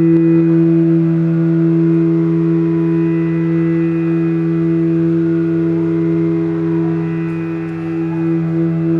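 Two bansuri bamboo flutes, a large bass bansuri and a smaller one, playing long held notes in a slow Hindustani classical passage over a steady drone.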